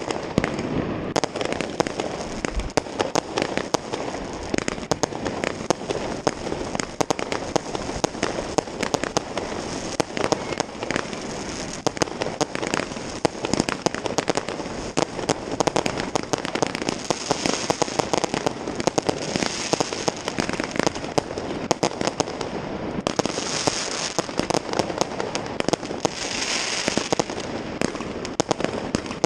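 Dense New Year's Eve fireworks: firecrackers and rockets banging and crackling almost without pause, many overlapping from all sides. There are a few stretches of hissing in the last third.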